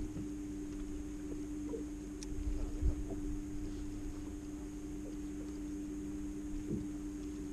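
Electric bow-mounted trolling motor on a bass boat running with a steady hum, over low rumble, with a few light knocks on the boat's deck.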